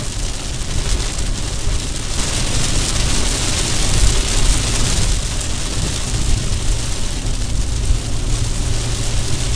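Steady road and rain noise heard from inside a car driving on a wet road in a heavy downpour: a low rumble with a bright hiss of rain and tyre spray, shifting abruptly about two and five seconds in.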